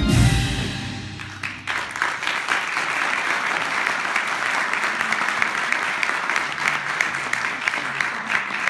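Music fades out in the first second or so. Then a theatre audience breaks into steady applause, many hands clapping at once.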